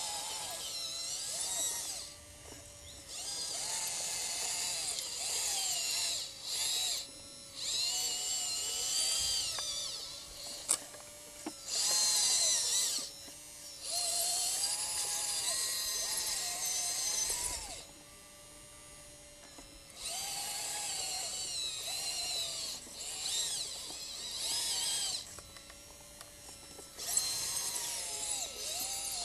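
Electric motors and hydraulics of an RC scale Liebherr LR 632 crawler loader model whining in spurts as it tracks and works the bucket. The pitch glides up and down with each command, with short pauses between moves, over a faint steady hum.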